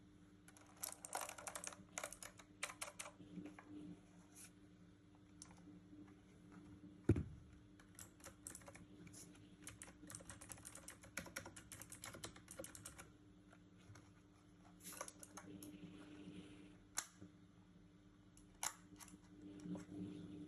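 Keys of a JeDEL WKL-102 keyboard being typed on in irregular runs of quick clicks with short pauses between them. One low thump about seven seconds in is the loudest sound.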